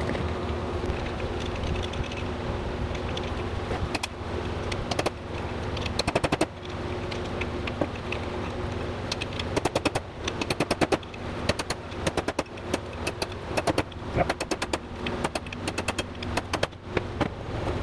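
Hammer blows on a wedge driving a steel bearing race out of a brake rotor hub: sharp metallic strikes in quick runs of several a second, starting a few seconds in.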